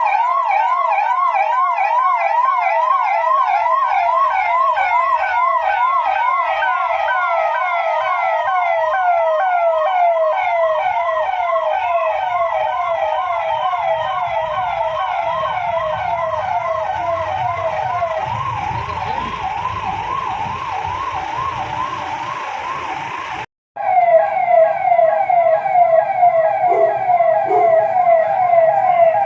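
Police vehicle siren sounding in a fast yelp, its pitch sweeping up and down several times a second without pause. Low vehicle rumble joins it for a while in the middle. The sound drops out for a moment near the end and the siren comes straight back.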